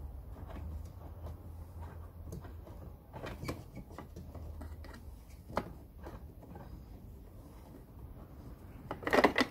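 Faint scattered clicks and knocks as an 11 mm wrench turns the plastic nut that holds a car's tail light, with a sharper click about five and a half seconds in. A short, louder burst of sound comes just before the end.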